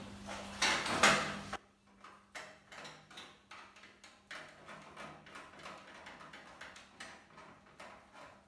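Hands and a small tool working on the metal parts of a black box-shaped appliance: a loud scraping rattle in the first second and a half, then a run of small metallic clicks and knocks, several a second, as the parts are adjusted.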